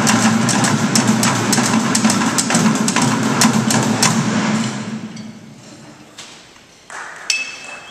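Found-object percussion ensemble striking plastic barrels, buckets and metal signs in a quick run of hits, which stops about four and a half seconds in. Near the end the audience starts to applaud.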